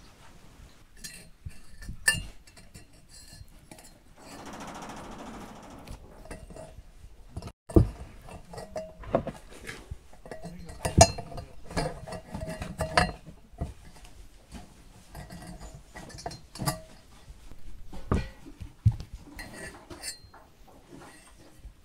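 Irregular metallic clinks and clicks as steel wire is twisted with pliers to bind a whole lamb carcass to a square steel-tube spit, with a brief rustle about four seconds in.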